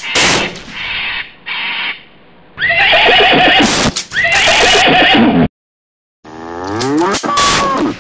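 A horse whinnying twice in the middle, two long, loud calls falling in pitch, used as a sound effect for a galloping cartoon horse. A few shorter sounds come before them, and near the end there is another call that sweeps in pitch.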